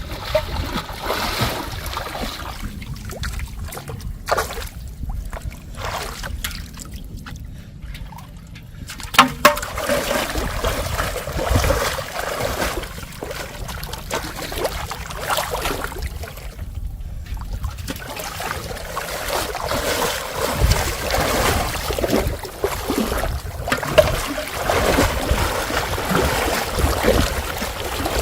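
Water splashing and trickling as it is stirred and poured, uneven throughout, with a couple of sharp knocks, one about nine seconds in and one near the end.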